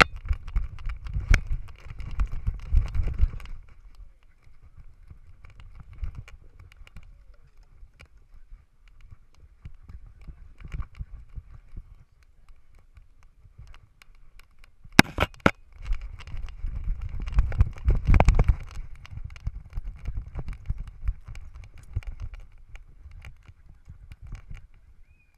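A GoPro in its housing on a miniature schnauzer's harness, jostled and rubbed as the dog moves, giving irregular low thumps and rattles. The knocking is heaviest in the first few seconds and again from about two thirds through, with a few sharp clicks just before the second stretch.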